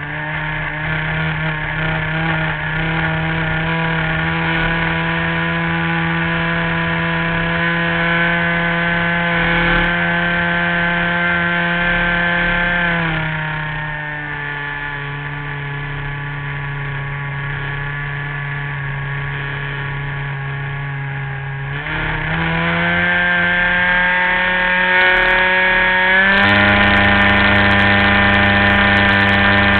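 Radio-controlled model airplane's engine running in flight, heard from on board. It is throttled back about 13 seconds in, then opened up again around 22 seconds and once more around 26 seconds, finishing louder and higher.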